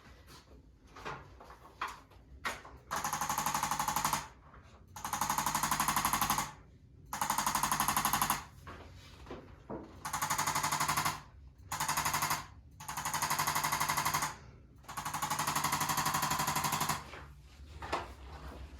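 Handheld electric percussion instrument, such as a massage gun or motorized adjusting tool, hammering rapidly against the patient's back or neck. It comes in about seven separate bursts of one to two seconds each, with short pauses between.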